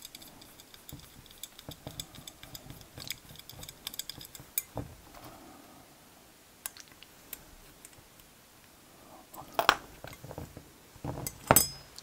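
Small metallic clicks and taps of brass dowel feet being screwed into a brass clock bezel ring with a small screwdriver. Near the end come two louder knocks, as the ring and the screwdriver are set down on the bench.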